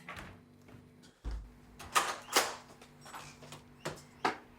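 A door being handled: several soft clicks and knocks, with a low thud a little over a second in, over a faint steady hum.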